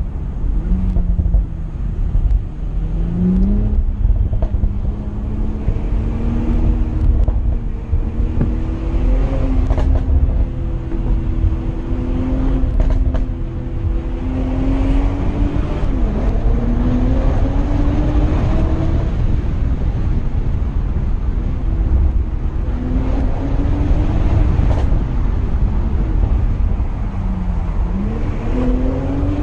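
BMW Z4 M40i's turbocharged 3.0-litre straight-six and sports exhaust being driven hard. The engine note climbs with the revs and drops sharply a couple of times as the throttle is lifted or a gear is changed. A few short sharp exhaust crackles sound over heavy wind and road rumble.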